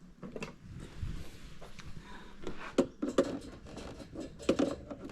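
Small hard clicks and knocks of tools and metal boat parts being handled on a workbench, a few sharper taps about three seconds in and near the end, while working a flex drive cable loose from an RC boat.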